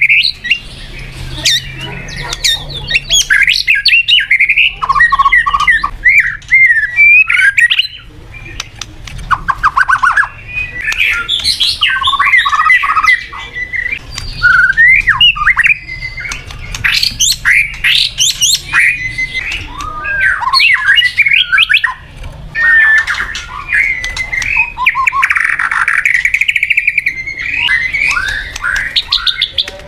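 White-rumped shama singing a long, varied song of gliding whistled phrases and rapid trills, with short breaks about eight and twenty-two seconds in.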